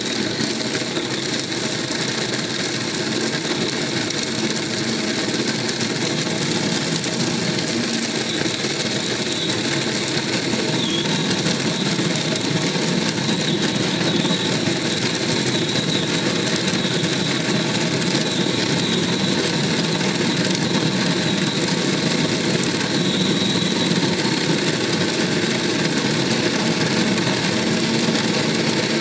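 Arzum Prokit 444 food processor's motor running steadily, its blade chopping bread and greens fed down the feed tube.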